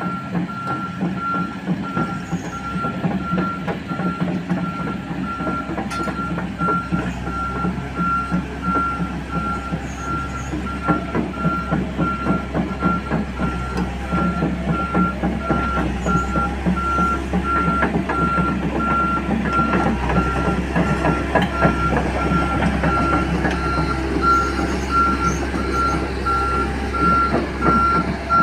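Komatsu crawler excavator's travel alarm beeping at an even rate over its running diesel engine and the rattle of its tracks as it moves. The beeping stops right at the end.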